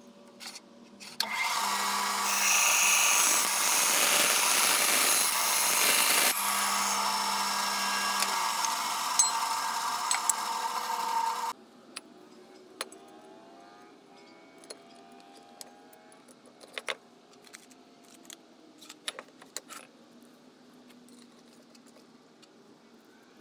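Band saw cutting aluminum extrusion: a loud, dense rasp over the saw's running hum for about ten seconds, cutting off suddenly. Afterwards come scattered light clicks and scrapes of aluminum extrusion and bolts being handled and fitted.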